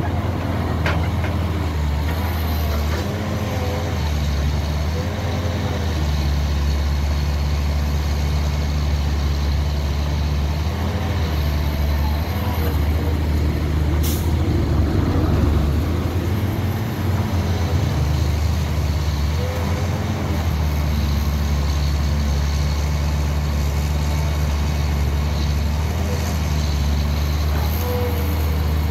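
Caterpillar 320L hydraulic excavator digging dirt: its diesel engine runs steadily under load, the engine note shifting in level every few seconds as the boom and bucket work, with short rising-and-falling tones from the machine now and then. A single sharp click about halfway through.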